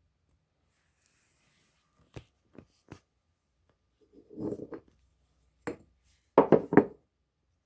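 Handling noise: three light knocks, then short scraping or rubbing sounds, the loudest near the end.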